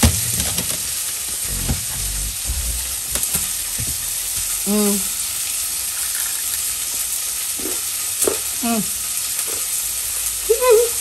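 Chicken pieces frying in a shallow pan of hot oil, a steady sizzle throughout. A few short pitched voice-like calls break in about halfway and near the end.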